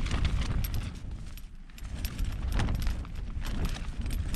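Wind gusting against a trekking-pole tent: a steady low rumble of wind with the tent fabric flapping and crackling, easing briefly about a second and a half in, then picking up again.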